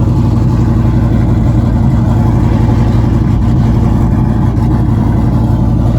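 Vehicle engine and exhaust running under steady load while driving: a loud, even, low drone with no change in pitch.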